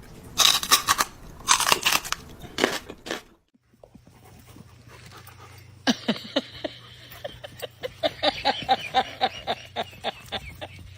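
Three loud crunching bites in the first few seconds, then a dog giving a rapid run of short yips, about four a second, over a steady low hum.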